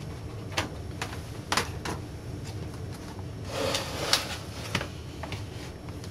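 Clicks and knocks of a metal-framed LCD monitor panel being handled and turned around on a table, with a denser clatter about three and a half to five seconds in.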